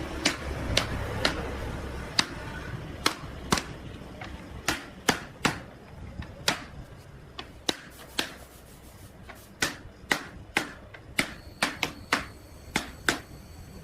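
Irregular sharp knocks and taps, one or two a second, some with a short ringing tail.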